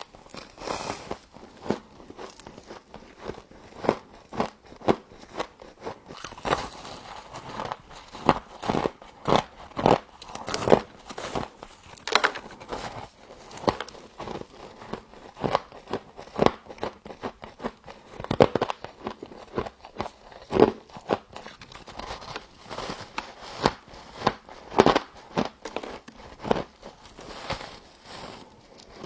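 Frost being bitten and chewed close to the microphone: a long run of crisp, irregular crunches, about one or two a second.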